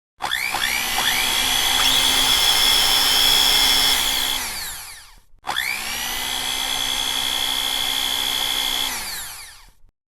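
Electric blender motor switched on twice. Each time it spins up with a rising whine, runs steadily for about four seconds, then winds down with a falling pitch once switched off.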